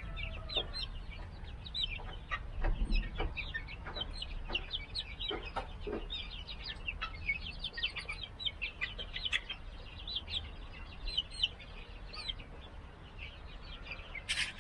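A small flock of young mixed-breed chickens peeping and chirping continuously in short, high calls. A few knocks come through about three to six seconds in.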